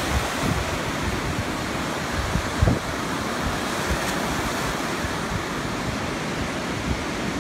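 Small lake waves breaking and washing up onto a sandy beach, a steady surf wash.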